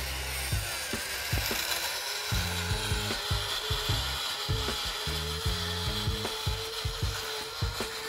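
Electric gear motor of a homemade remote-control pickup truck running, a steady whine with a grinding, rattling gear noise as the truck drives across sand.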